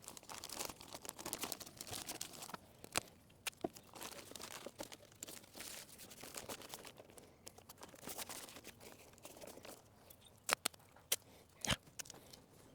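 Faint crinkling of a plastic sheet and tape being pulled and torn as a homemade plastic weather barrier is taped onto a truck's inner door panel, with a few sharp clicks near the end.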